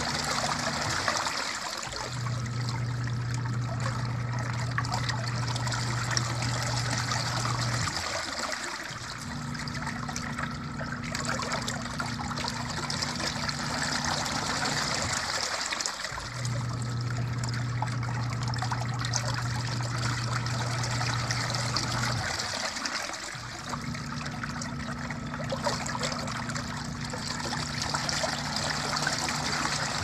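Twin-tub washing machine's wash tub churning water: the pulsator's motor hums under steady sloshing. Four times it stops briefly and reverses direction, about every seven seconds, its hum changing tone with each direction.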